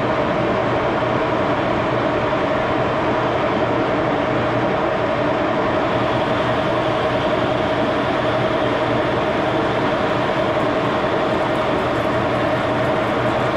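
Axelson gear-head engine lathe running steadily with its spindle turning, a steady tone sounding over the drive's mechanical noise.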